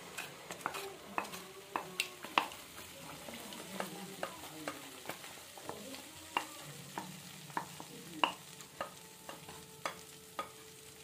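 Wooden spatula tapping and scraping against a bowl and a nonstick kadai in sharp, irregular clicks, as thick masala paste slides into hot oil and butter and sizzles.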